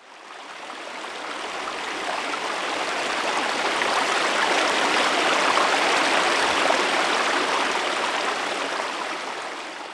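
Shallow stream running over stones, a steady rush of water that fades in over the first few seconds and fades out near the end.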